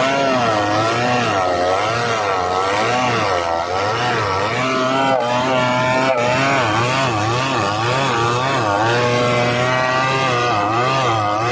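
Chainsaw running under load while cutting into a large ironwood trunk, its engine pitch rising and falling over and over.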